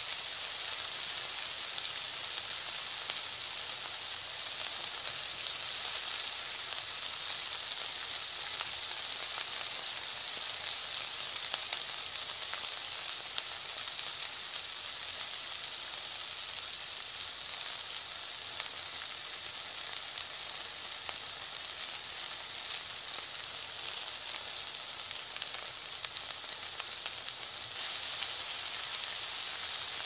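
Chickpeas and sliced red onion sizzling in oil in a frying pan: a steady hiss with scattered pops and crackles, getting a little louder again near the end.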